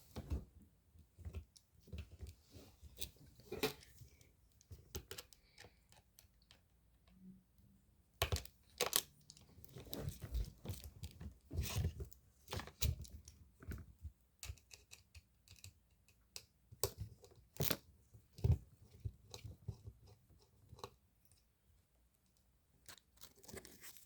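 Irregular clicks, taps and scrapes of small hard objects being handled, with a few louder knocks.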